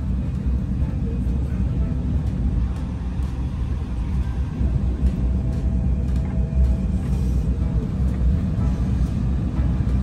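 Steady low rumble of an airliner cabin while the plane rolls along on the ground, its engines and wheels droning evenly.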